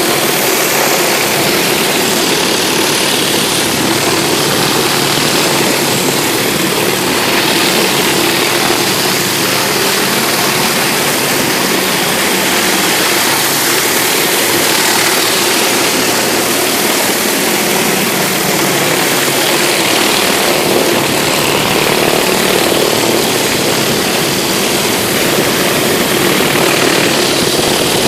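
Pressure washer running steadily: an engine hum under the constant hiss of high-pressure water spraying onto concrete, cleaning off food grease.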